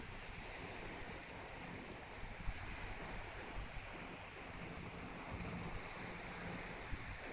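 Wind buffeting the microphone over the wash of the sea, with a faint steady low hum underneath.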